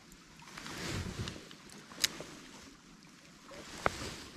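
Water sloshing and splashing that swells for about a second, followed by two sharp clicks about two seconds apart.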